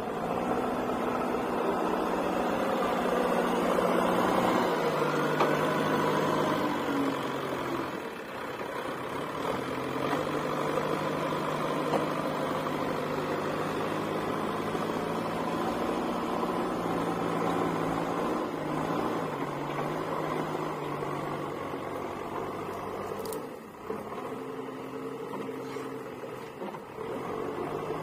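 JCB 3DX backhoe loader's diesel engine running under working load, its speed stepping up and down as the front loader bucket is worked and the machine moves. There is a short knock about three-quarters of the way through.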